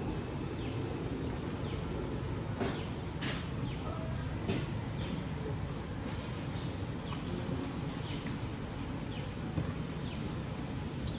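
Outdoor ambience: a steady high-pitched insect drone over a constant low rumble, with scattered short ticks and chirps.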